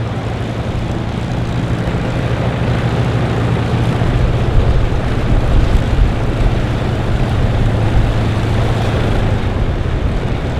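Formation of piston warbirds, P-40 Kittyhawks with a P-51 Mustang, flying past with a steady V12 engine drone that swells slightly around the middle.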